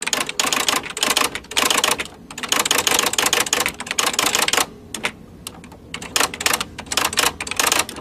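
Typewriter typing sound effect: rapid key clacks in bursts, thinning out briefly a little past the middle.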